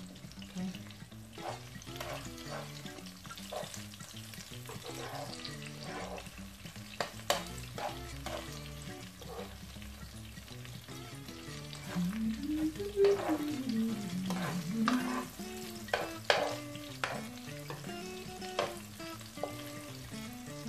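Scrambled eggs with chopped bell pepper sizzling in a frying pan, with a metal spoon scraping and tapping against the pan as it stirs.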